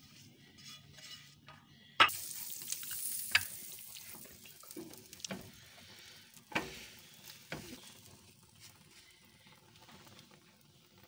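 Egg-dipped bread slices sizzling on a hot grill pan. A sharp knock comes about two seconds in, the sizzle is loudest just after it and then fades, and a few more knocks follow.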